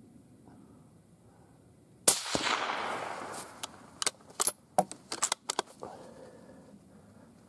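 A suppressed .223 Howa 1500 bolt-action rifle fired once, about two seconds in, the report trailing off over about a second and a half. It is followed by a quick series of sharp metallic clicks as the bolt is worked to chamber the next round.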